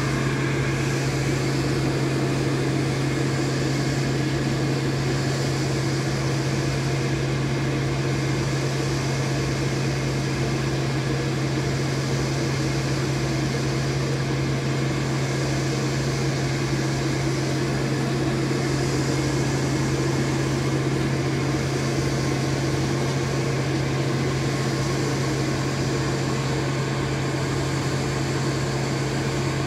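Steady hum of a running electric blower, a constant low drone over an even rush of air that does not change.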